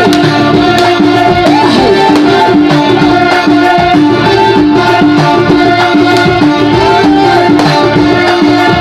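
Loud amplified live music: held keyboard tones over a steady hand-drum rhythm, played through a PA system.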